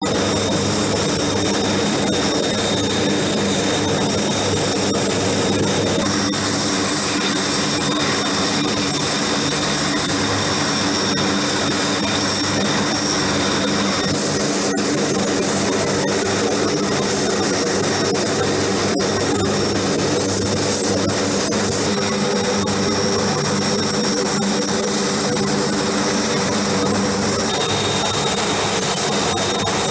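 Jet aircraft engine running steadily: a continuous broad rush with a steady high whine over it, shifting slightly at a few abrupt changes.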